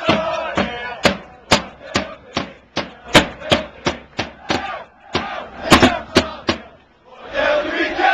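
Marching drums beaten in a steady beat, about two and a half strikes a second, with crowd voices between the strikes. Near the end the beating stops and a crowd chant starts up.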